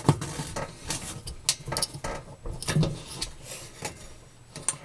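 Irregular small metallic clicks, scrapes and rattles from spade connectors being pushed onto the terminals of a new electric oven bake element.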